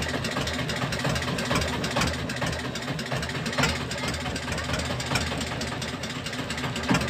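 Boat engine idling steadily, with a few scattered knocks.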